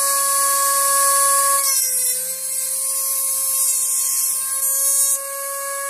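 Handheld rotary tool with an abrasive cut-off wheel running at a steady high whine. From about two seconds in until about five, its pitch dips slightly as the wheel is loaded cutting through an arrow shaft.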